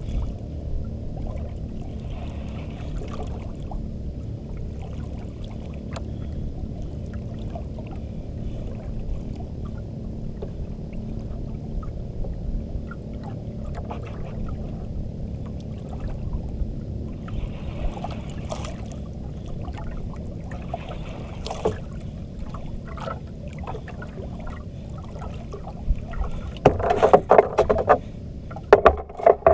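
Steady low rumble of wind and sea noise around a small wooden outrigger boat, with scattered small knocks and clicks and two louder bursts near the end.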